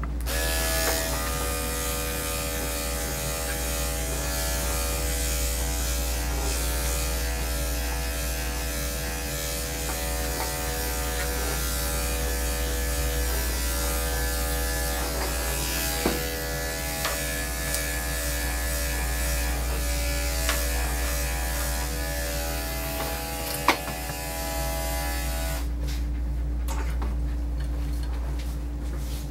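Electric dog grooming clippers fitted with a number-4 guard comb, running steadily as they clip the dog's coat short, then switched off near the end. A couple of light knocks sound along the way.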